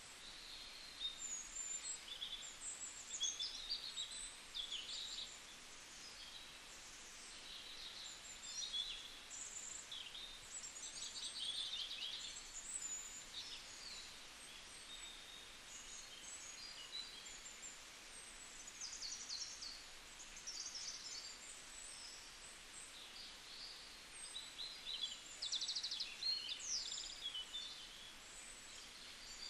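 Small birds chirping and twittering faintly, with many quick high calls and short rapid trills that come and go in clusters, over a faint steady outdoor hiss.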